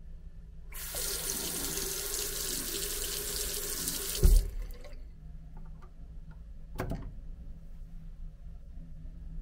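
Single-lever mixer tap running a thin stream of water into a washbasin. The water starts just under a second in and stops about four seconds in with a loud thump. A single short click follows near the end.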